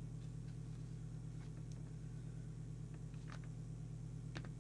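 Steady low electrical hum on the workbench, with a few faint clicks.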